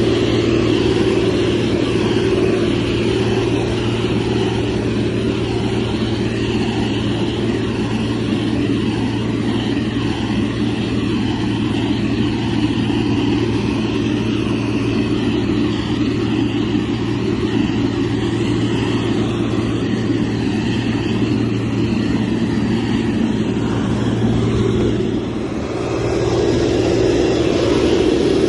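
Diesel engine of a heavy road-construction machine running steadily with a low hum. It eases off briefly near the end, then comes back up.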